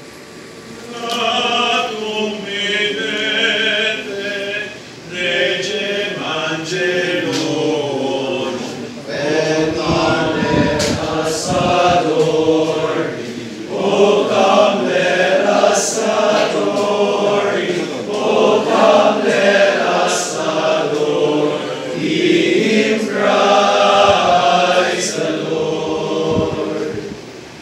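Male choir of seminarians singing together, in sustained phrases with short pauses for breath between them.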